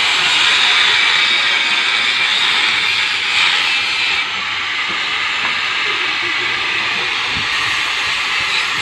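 Handheld angle grinder cutting steel rod, a steady high grinding hiss as the disc bites into the metal.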